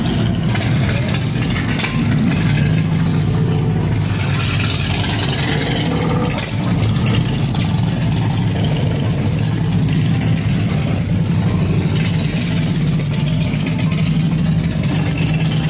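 A line of motorcycles, heavy cruisers among them, riding past one after another with their engines running steadily.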